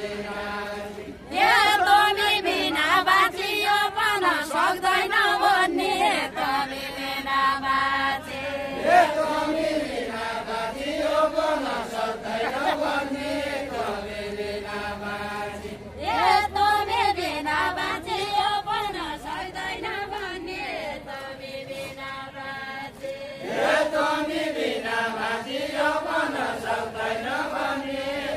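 A group of voices singing a Deuda folk song unaccompanied, in long drawn-out chanted lines with no instruments; a new sung phrase starts three times, about a second in, past the middle and near the end.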